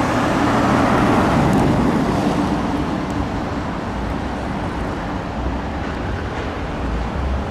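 City road traffic: double-decker buses and cars running and passing, a steady rumble of engines and tyres with no siren.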